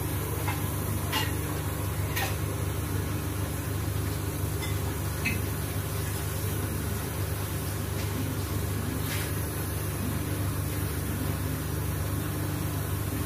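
Steady low mechanical hum with a faint even hiss, broken by a few faint light clicks.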